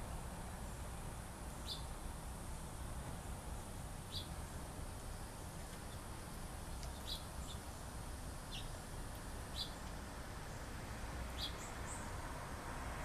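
Birds giving short, high chirps every second or two, with a couple of higher notes near the end, over a steady low background rumble.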